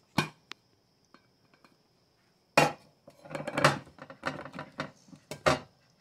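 Aluminium tube cake pan and glass serving plate knocking and clattering against each other as the pan is turned over onto the plate. One sharp knock comes just after the start, then a run of rattling knocks from about halfway through until near the end.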